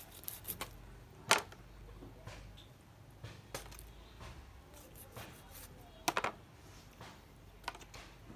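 Scattered sharp clicks and knocks of a kitchen knife and a puffer fish being handled on a cutting board while the fish is skinned. The loudest is a single knock about a second in, and there is a quick cluster of clicks about six seconds in.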